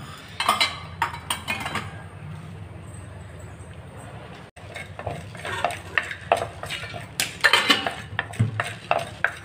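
Wooden spoon stirring and scraping black peppercorns and cumin seeds as they dry-roast in an unglazed clay pot: irregular scrapes and light knocks in two spells, the busier one in the second half.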